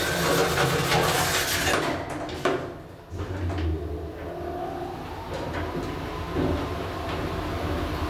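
1985 Hopmann elevator: its automatic doors slide shut, ending in a knock about two and a half seconds in. About a second later the car starts moving down with a steady low hum and a faint rising whine.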